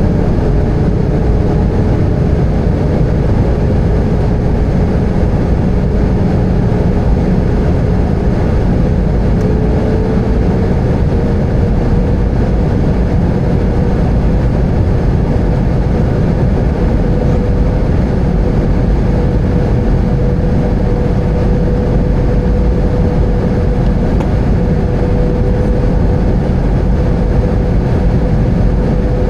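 Airbus A320 cabin noise heard from a window seat: a steady rumble of the engines and airflow, with a faint engine tone that rises a little about ten seconds in as the thrust changes.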